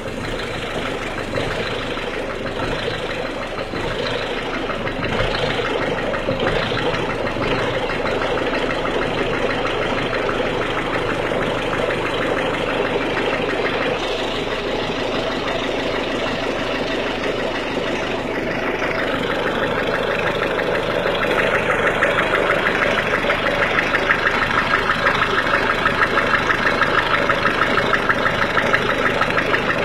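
A 1.6 HDi four-cylinder common-rail diesel engine idling with a rhythmic clatter (claquement), the noise it makes when cold. About two-thirds of the way in, the fast regular ticking grows louder and more distinct.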